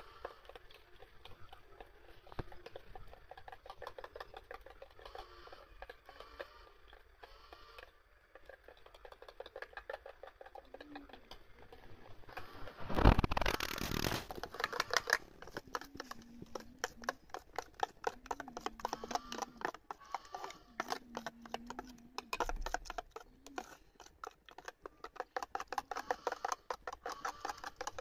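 A metal spoon beating batter in a plastic bowl, with rapid, steady clicking strokes against the bowl's side. A brief louder burst of noise comes about halfway through.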